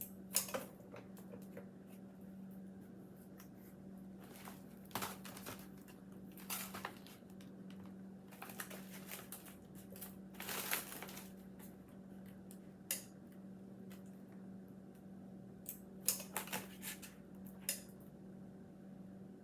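Storage bags being handled and heat-sealed on an impulse sealer: scattered crinkles, clicks and knocks, some in quick clusters, over a steady low hum.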